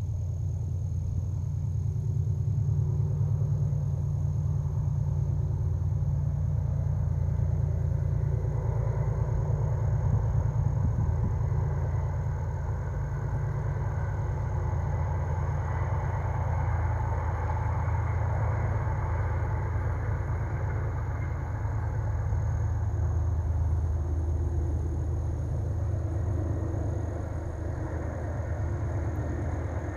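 Passenger train passing: a steady low rumble, with a higher running noise that swells from about nine seconds in and fades again after about twenty seconds.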